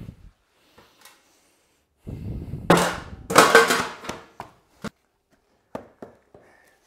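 Lengths of pressure-treated 2x6 timber dropped and clattering onto the shop floor, two loud wooden clatters about two and three seconds in, followed by a few light single knocks as boards are set down.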